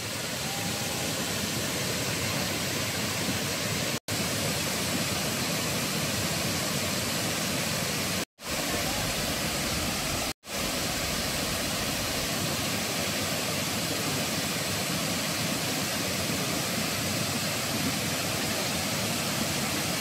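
Thi Lo Su waterfall's steady rush of falling water, an even noise spread from low to high pitch. It cuts out for an instant three times, about 4, 8 and 10 seconds in.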